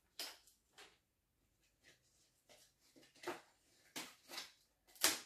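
Paper word cards being handled: a series of short rustles and light taps as a card is pressed onto a whiteboard and others are sorted, with the loudest rustle near the end.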